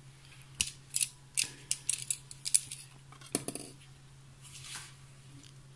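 A quick series of light, sharp clicks and clinks, hard objects tapping against a glass bowl of boiled beef ribs, about a dozen in the first three and a half seconds, then a brief soft rustle; a low steady hum underneath.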